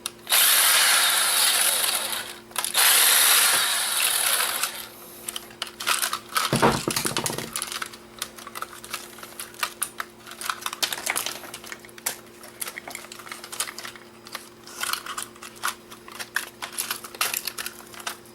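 A small electric screwdriver runs in short bursts for the first four seconds or so, backing out tiny screws. After that, small plastic and metal parts click and tap as the casing is handled and pulled apart, with one dull thud partway through.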